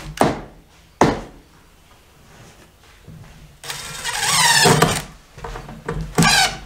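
Cordless drill driving a screw into 2x4 wood blocking between floor joists: two sharp knocks near the start, then the drill runs for about a second in the middle and again briefly near the end.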